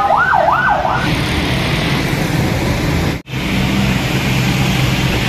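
An emergency vehicle's siren sweeping rapidly up and down, stopping about a second in. Then traffic on a wet road: engines running with a steady hiss of tyres on the wet tarmac, broken by a brief dropout about three seconds in.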